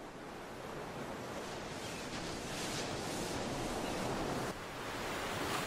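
Ocean surf washing onto a beach: a steady rush of noise that builds gradually, with waves swelling about two and a half seconds in and again near the end.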